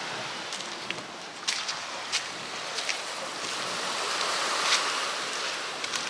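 Sea surf washing onto the beach, a steady rushing that swells and eases, with wind on the microphone and a few short ticks.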